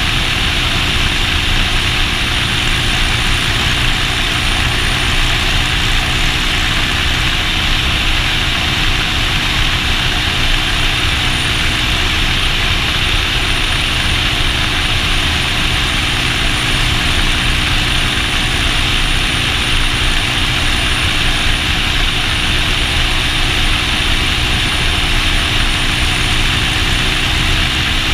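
Motorcycle engine running at a steady, unchanging speed, with a constant rush of wind noise over it.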